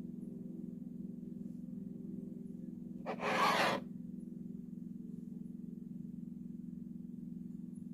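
A steady low hum, with one short hiss lasting under a second about three seconds in.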